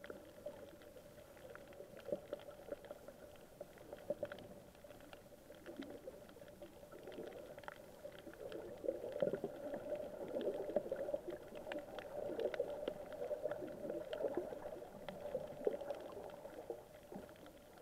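Underwater ambience over a coral reef: a muffled, steady water rumble with many scattered sharp clicks and crackles.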